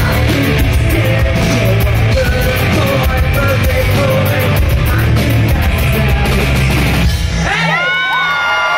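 Live rock band with guitars, drums, keyboards and a singer playing loudly. About seven seconds in the music stops and the crowd yells and whoops at the end of the song.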